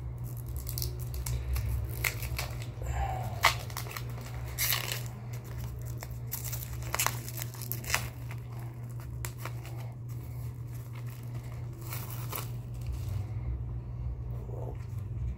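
Clear cellophane shrink-wrap being torn and peeled off a CD digipak, crinkling in irregular bursts, over a steady low hum.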